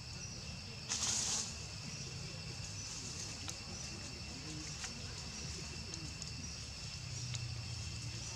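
Steady high-pitched drone of forest insects, with a short loud hiss about a second in and a few faint clicks.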